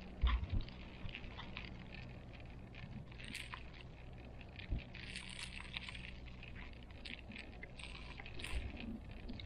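Ride noise inside a moving gondola cable car cabin: a steady low hum with scattered light clicks and rattles and a few soft thumps.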